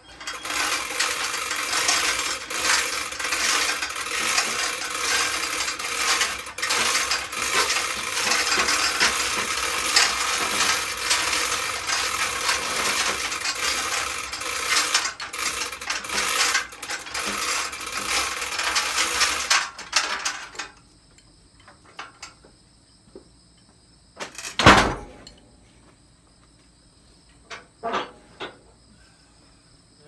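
Manual chain fall (chain hoist) being cranked by its hand chain: a fast, continuous clicking and rattling of chain links and ratchet pawl as it hoists a strapped log and rolls it over on the sawmill bed. The rattling stops about twenty seconds in, and a single loud thump follows a few seconds later.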